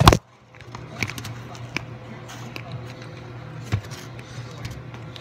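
Handling noise from the camera: a loud knock at the start, then scattered light clicks and rustles over a steady low hum.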